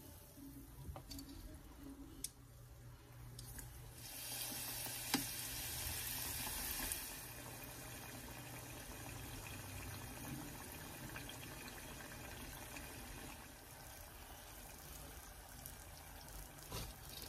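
Spring rolls deep-frying in hot oil in a stainless steel pot: a steady sizzle that surges sharply about four seconds in, as a fresh roll goes into the oil, and after about three seconds settles back to an even sizzle. A few light clicks of metal tongs against the pot, the sharpest about five seconds in.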